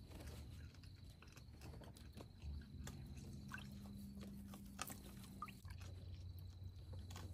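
Raccoons wading in a shallow plastic kiddie pool and clambering on a tire hung from a chain: faint scattered splashes, clicks and knocks. A faint low hum runs for a couple of seconds in the middle.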